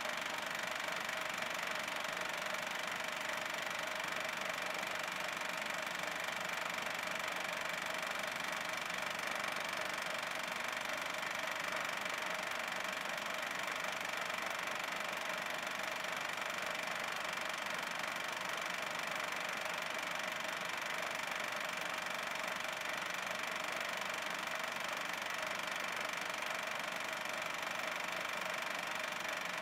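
Double 8 film projector running: a steady mechanical whirr with a faint high whine, unchanging throughout.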